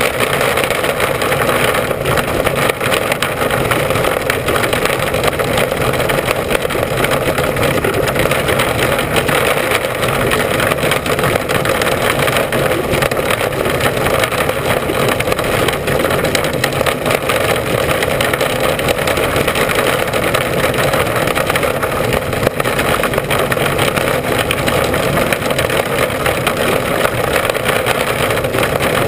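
Mini Sprint race car's engine running hard and steadily at racing speed, heard loud from an in-car camera.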